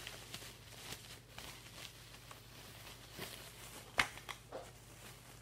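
Bubble wrap rustling and crinkling softly as it is pulled off a stack of cups, with a few light clicks and one sharp click about four seconds in.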